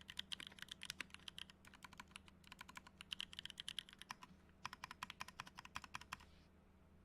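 Typing on an Octagon V3 custom mechanical keyboard fitted with NovelKeys Kailh Cream linear switches lubed with Krytox: a fast run of keystroke clacks, pausing twice briefly and stopping about six seconds in.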